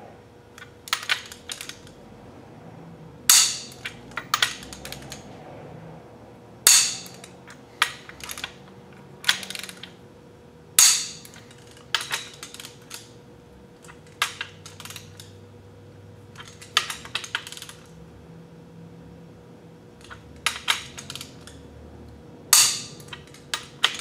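A click-type torque wrench snapping sharply again and again, with lighter clicks of ratcheting between, as the main bearing cap bolts on the Continental F245 block are torqued down. There are about twenty irregular clicks, a second or two apart, the loudest ringing briefly.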